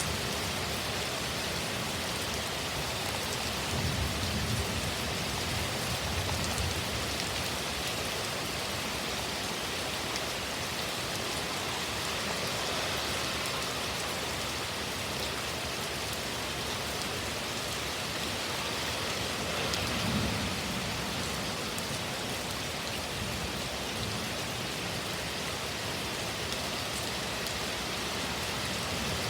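Heavy thunderstorm rain falling steadily, with a few low rumbles rising under it, the strongest about twenty seconds in.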